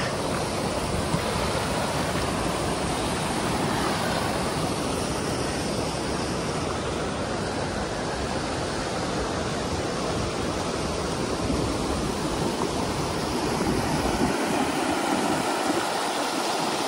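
Mountain creek rushing in whitewater cascades over granite rocks: a steady, loud rush of water.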